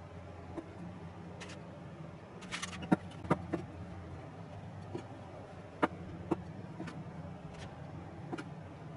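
Knife work on a wooden cutting board: a handful of sharp knocks of the kitchen knife and cooked sweet potato pieces against the board, bunched about three seconds in and again around six seconds, over a steady low hum.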